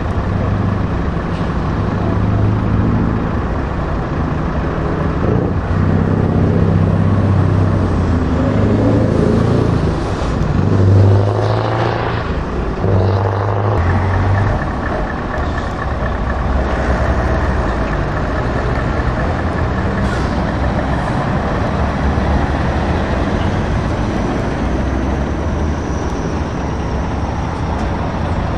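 Scania heavy truck diesel engines running as the tractor units drive slowly past, a deep steady engine note with a brief rise and fall in revs about halfway through.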